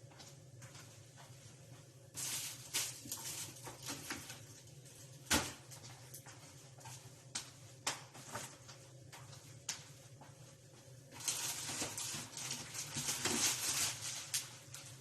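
Food containers and packages being taken out of a refrigerator and set down: scattered knocks and light clatter with stretches of rustling, and one sharper knock about five seconds in.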